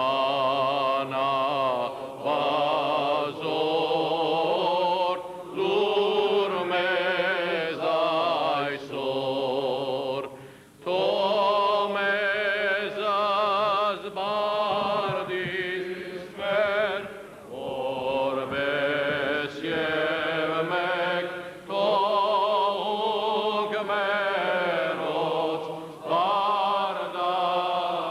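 Armenian Apostolic clergy chanting a hymn together, men's voices in long sung phrases with a wavering vibrato, broken by short pauses for breath.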